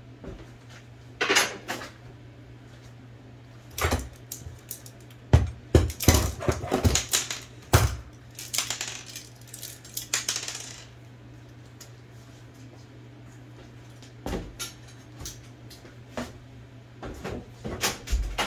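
Small metal typewriter parts being handled on a workbench: scattered clinks, knocks and rattles, with a scraping rasp of about two seconds near the middle.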